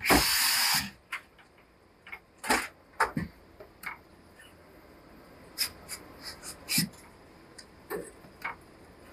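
Steam iron on a pressing table hissing, with one loud burst of steam just under a second long at the start, then several short spurts of steam and a few light knocks as the iron works over the jacket.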